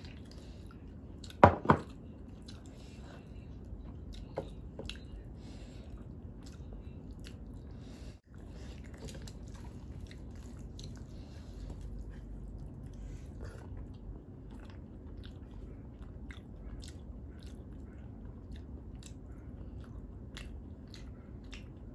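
Close-miked eating of rice and dal by hand: one sharp knock about one and a half seconds in as the glass dal bowl is set down, then fingers mixing rice on a steel plate and steady chewing with many small wet clicks.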